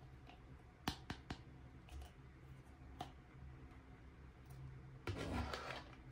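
Hands handling miniature toy kitchen pieces. There are three quick sharp clicks about a second in, single taps at about two and three seconds, then a brief rustling scrape near the end.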